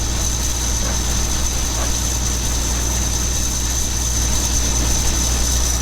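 A large engine idling steadily, a low hum with a thin high whine held over it.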